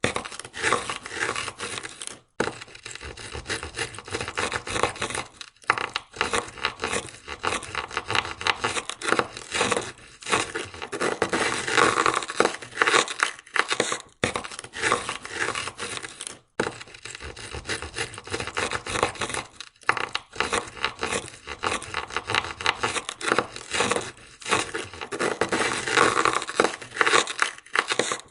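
Ice scraper scraping frost and ice off a car window in quick, repeated rasping strokes, with a few short pauses.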